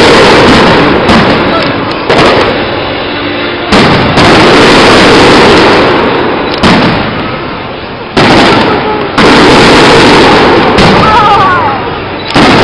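Aerial firework shells going off in a rapid series of loud bangs, each dying away over a second or so before the next, at intervals of one to three seconds.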